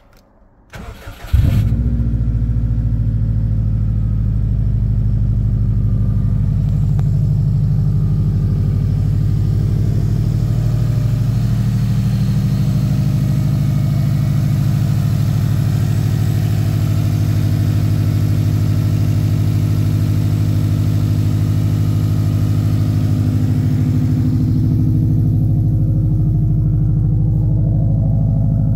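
Subaru Impreza WRX's turbocharged 2.5-litre EJ255 flat-four, breathing through a Blitz Nur Spec exhaust, cold-started: a short crank, it catches about a second in with a brief flare of revs, then settles into a steady idle. It idles evenly, with no rattles, by the owner's account.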